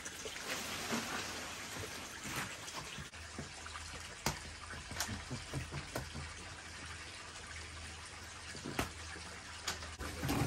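Steady trickle of running water, with scattered sharp clicks and knocks from a large cardboard box and its plastic strapping being handled.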